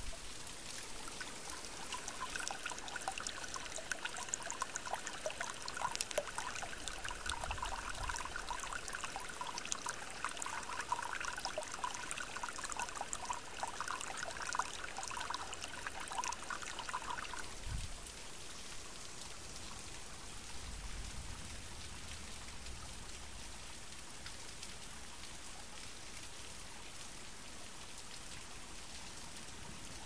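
Rain with storm water pouring and splashing, a dense run of drips and trickles that cuts off suddenly about 18 seconds in, leaving steady rain.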